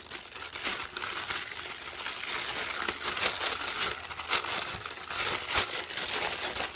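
Thin plastic packaging crinkling and rustling continuously with many small sharp crackles as a small toy is unwrapped by hand.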